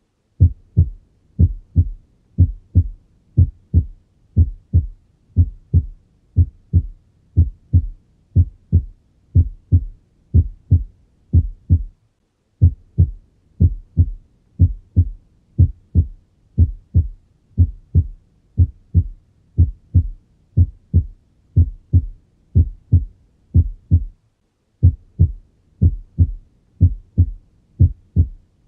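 Normal heart sounds heard on auscultation: steady lub-dub pairs, the first heart sound followed by the second, at about one heartbeat a second. The beats break off briefly about 12 and 24 seconds in.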